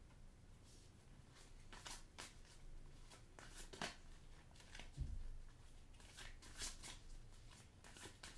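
A deck of tarot cards being shuffled by hand: faint, irregular riffling and soft slaps of card on card, with one dull thump about five seconds in.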